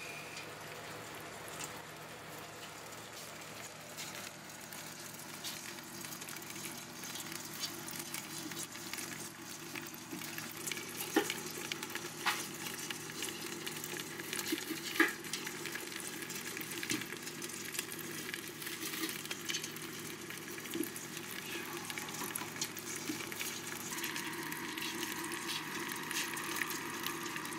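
Live sawagani freshwater crabs crawling over one another in a stainless steel pot: a steady fine crackle of legs and shells scratching and ticking, with a few sharper clicks in the middle.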